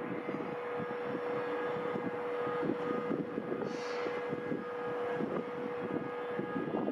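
Tenryu Hamanako Railroad TH2100 diesel railcar running as it pulls away, its engine and running gear giving an uneven rumble with a steady whine that stops about five seconds in.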